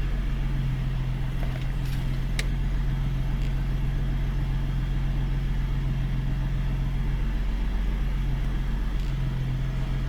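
Ford F-150's naturally aspirated V6 idling steadily from a cold start, its high cold-start idle brought down to a lower, even idle of about 800 RPM. A single short click about two seconds in.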